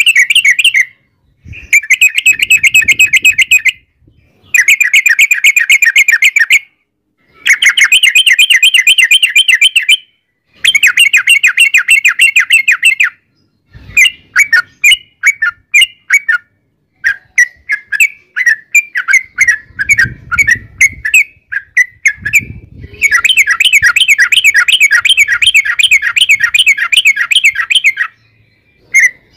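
Yellow-vented bulbul (trucukan) singing its long rolling 'ropel' song: fast chattering phrases of two to three seconds, repeated with short pauses. Near the middle come looser runs of separate chirps.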